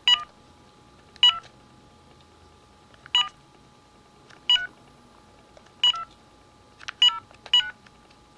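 Keypad tones of a GE 900 MHz cordless phone handset as a number is dialed: about seven short beeps, one per key press, at an uneven pace of one to two seconds apart, quickening near the end.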